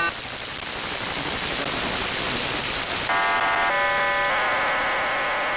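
Shortwave static hiss from the Cuban numbers station's channel on 11530 kHz. About three seconds in, a multi-tone data burst starts: a set of steady tones sounding together that shifts twice within a second, then settles into a dense buzz.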